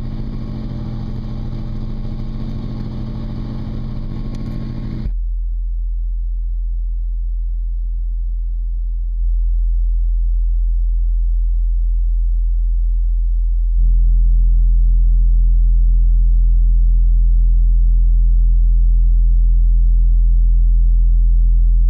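Car audio subwoofer playing a steady, very low bass tone, turned up in steps so that it gets louder about five, nine and fourteen seconds in. After the last step it sounds slightly rougher as overtones appear. Before the tone starts there is a steady rumble with hiss.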